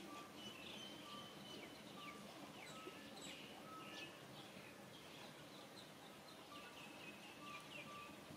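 Faint outdoor ambience with birds chirping: many quick, high falling chirps and short level whistled notes scattered throughout.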